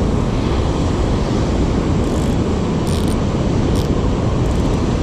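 Steady rushing noise of breaking surf and wind buffeting the microphone, with a couple of faint high clicks about three seconds in.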